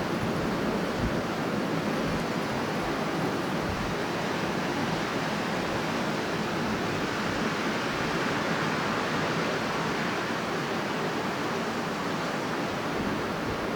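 Strong wind blowing as a steady, dense rush of noise with no distinct gusts or breaks, growing slightly brighter about halfway through.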